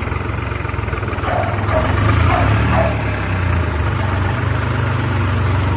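Tractor engine running steadily with a deep rumble, a little louder from about two seconds in.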